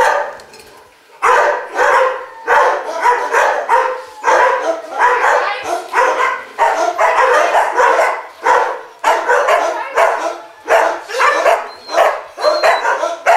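Many kennelled dogs barking over one another in a dense, near-continuous chorus, after a brief lull in the first second.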